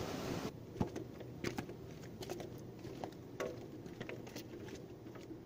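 Faint, irregular taps and clicks scattered over a low background hiss.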